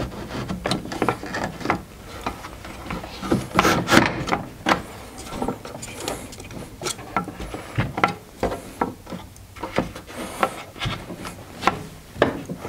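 Router-table fence and a small wooden jig being slid and adjusted by hand: wood rubbing across the table top with irregular knocks and clicks, the router not running.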